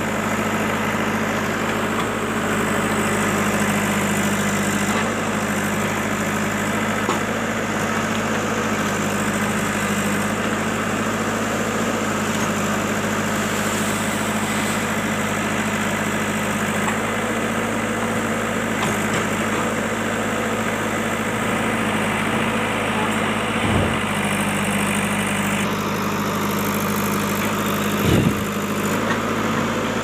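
JCB backhoe loader's diesel engine running steadily at a low, even pitch as the backhoe digs. Two short thumps stand out, one about three-quarters of the way through and a louder one near the end.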